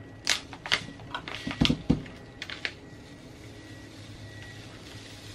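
Food packet crinkling and crackling as it is pulled open by hand: a run of sharp crackles over the first few seconds, with two dull knocks a little under two seconds in. A steady low hum runs underneath.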